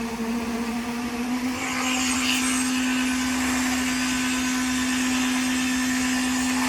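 A small motor-driven machine running steadily with a constant hum and hiss, rising slightly in pitch and getting a little louder about one and a half seconds in.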